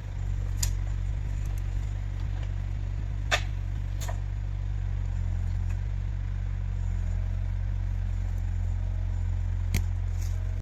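Heavy machine's engine running steadily at a low drone, with a few sharp knocks or clanks over it, the loudest about three and a half seconds in. The sound cuts off abruptly at the end.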